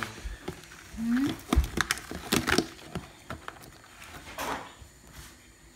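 Scattered clicks and knocks of live lobsters' shells and legs scrabbling against a plastic tub, with a brief rising tone about a second in.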